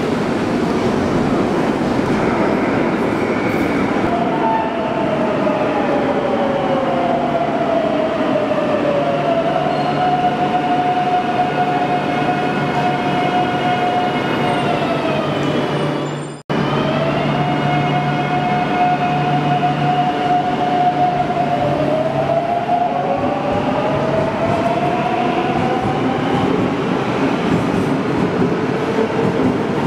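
Madrid Metro Line 9 electric train pulling into the platform, its traction motors whining down in pitch as it brakes and holding one steady tone at crawling speed, over the rumble of wheels on rails. Halfway through the sound cuts out for an instant. The whine then comes back steady and rises in pitch as the train accelerates away.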